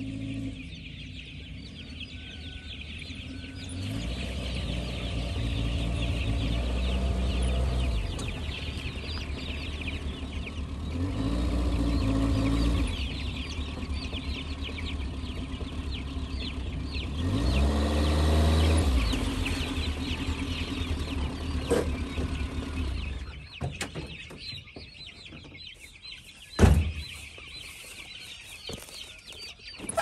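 A Suzuki mini truck's engine running and revving in three swells as it reverses slowly, then falling quiet about 23 seconds in. Over it, the constant high peeping of many chicks. Near the end there is a single loud knock.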